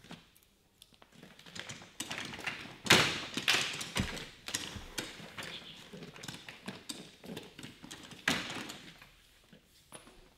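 Footsteps on a hard floor, an irregular run of taps and knocks with scattered rustling, with two louder scuffs about three and eight seconds in.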